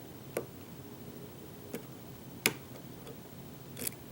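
Sparse small metallic clicks of a lock pick working the pins of Pickaholic's Hull Breach challenge lock: four clicks, the third the loudest.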